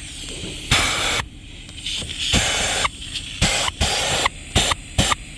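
Vacuum cleaner sucking dirt and debris out of a car's cabin air filter housing, the rush of air hissing in about six short bursts over a steady low motor rumble.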